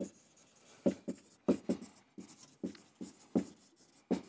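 Dry-erase marker writing on a whiteboard: a run of about a dozen short strokes with brief gaps between them.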